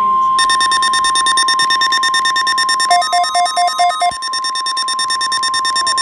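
NOAA Weather Radio warning alarm tone, a steady 1050 Hz tone, sounding during a weekly test. Weather alert radio receivers set off by it beep rapidly over it, and a second receiver adds a short run of about six lower beeps midway. The tone cuts off suddenly at the end.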